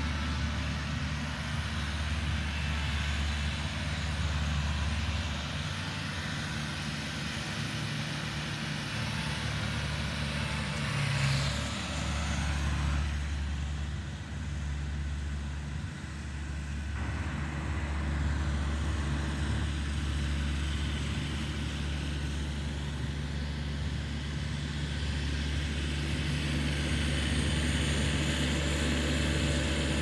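Steady low engine drone with a few held low tones, with a brief rising sound about eleven seconds in.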